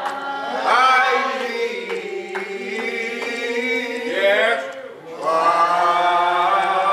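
Church congregation singing a slow hymn, holding long drawn-out notes and sliding between pitches, with a short break between phrases about five seconds in.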